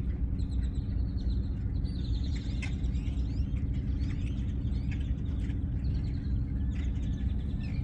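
Birds chirping and twittering with many short calls and quick rising whistles, over a steady low mechanical hum like an engine running nearby.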